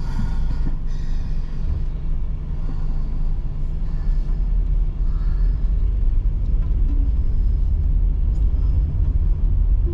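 A car driving along: steady, low road and engine rumble.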